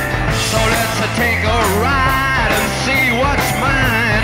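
Background rock song: a singing voice over bass and guitar, with a steady drum beat.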